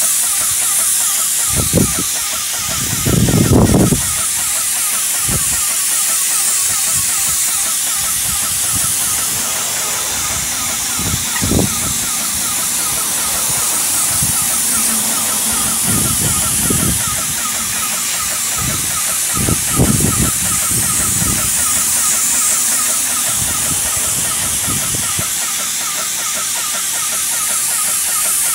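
Airless paint sprayer hissing steadily as paint is sprayed through a pole-mounted gun onto siding, with a fast, even ticking underneath and a few brief low bumps.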